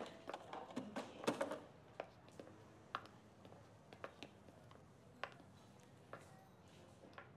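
Quiet shop room tone with scattered light clicks and knocks, several close together in the first second and a half, then only a few sparse ones.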